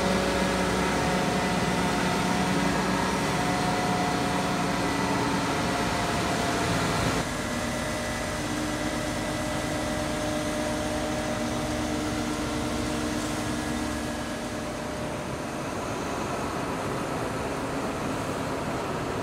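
Mobile truck crane's diesel engine running steadily while lifting a load, with whining tones over it that change pitch now and then. The sound changes abruptly about seven seconds in.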